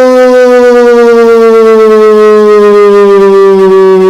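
A commentator's long, held 'goooool' shout: one loud, unbroken vowel whose pitch sinks slowly.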